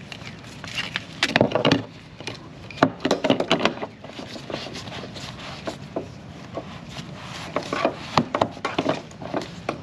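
Irregular clicks, knocks and rubbing of hands and parts as a fuel line connector is worked and pressed onto a new fuel pump, in clusters of sharp taps.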